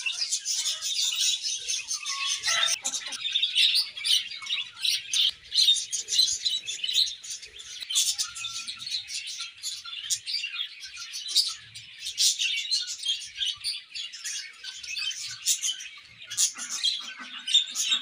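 A flock of budgerigars chirping and warbling: a continuous dense chatter of many overlapping high chirps.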